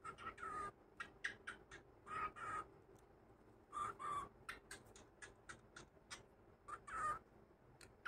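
Pet cockatiel chattering: short, harsh calls in pairs come every second or two, with quick clicks in between.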